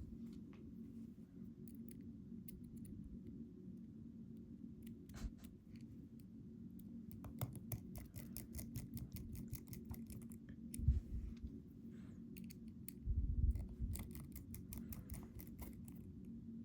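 Small metallic clicks and scrapes from a reassembled lock and its key being handled, with a couple of dull knocks about two-thirds of the way in, over a steady low hum.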